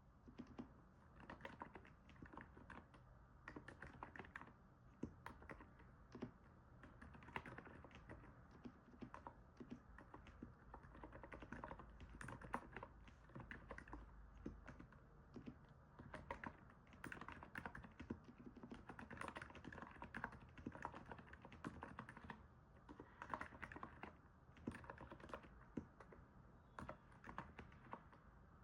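Continuous typing on a NIZ 68 Pro electro-capacitive keyboard: a faint, irregular stream of soft keystrokes in quick runs, broken by short pauses.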